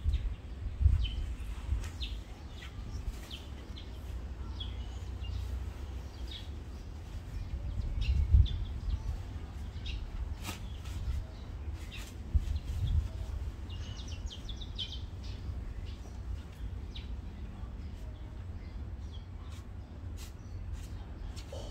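Small birds chirping in short, scattered calls, with a quick run of chirps about two-thirds of the way through. Under them runs a low rumble on the microphone, with a few thumps and light clicks.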